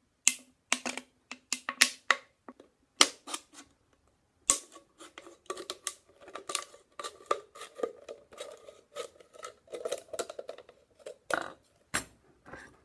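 Scissors cutting through a thin plastic water bottle: a run of sharp snips and crackles from the plastic, with a steady squeak in the middle stretch as the blades work around the bottle.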